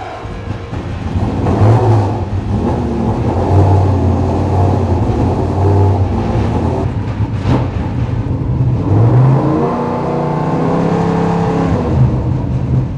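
Ligier JS P3's V8 racing engine revving in repeated blips, pitch rising and falling, getting louder about a second in.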